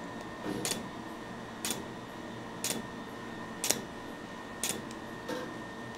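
Laser hair removal handpiece firing pulses against the skin: a short, sharp snap about once a second, six in a row at an even pace, over the laser unit's faint steady tone.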